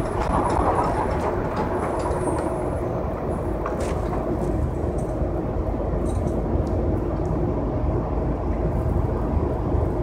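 Steady low rumble of a moving vehicle heard from inside its cabin, with a few light clicks.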